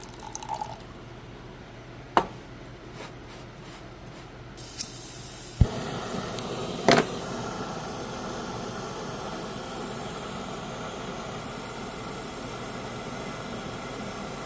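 A few sharp clicks, then a steady hissing rush that starts about five and a half seconds in, with one more click in it, and cuts off abruptly near the end.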